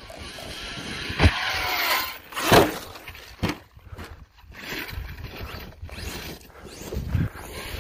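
Arrma Outcast 8S BLX brushless electric RC truck speeding across grass with a rising motor whine, then a sharp knock, a loud crash and another knock as it lands and tumbles. Its motor and tyres run again more quietly as it drives on.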